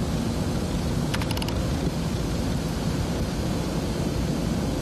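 Steady road and engine rumble of a car driving through the Gotthard road tunnel, heard from inside the cabin. About a second in there is a brief run of rapid clicks.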